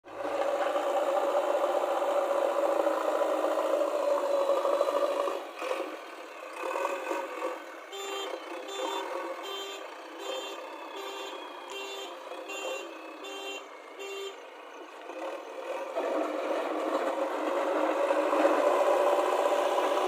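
JCB backhoe loader's diesel engine running, with its reversing alarm beeping steadily about ten times from around eight seconds in. The engine grows louder again near the end.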